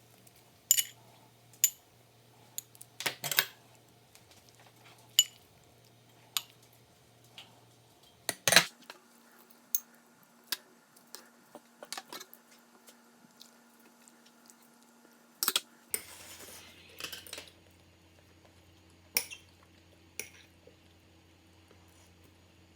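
Utensils clinking and scraping against dishes: scattered sharp taps, irregular and a second or two apart, with a short scrape about two-thirds of the way through.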